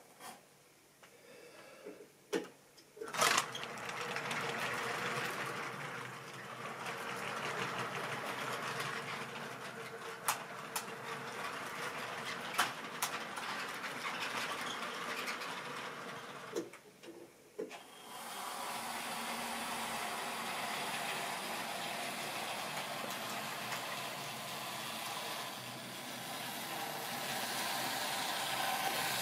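Model railway train running on the layout: the locomotive's small electric motor whirring and the wheels clattering over the track, with a few sharp clicks. It starts about three seconds in after two clicks, drops away briefly past the middle, then picks up again as another train comes past.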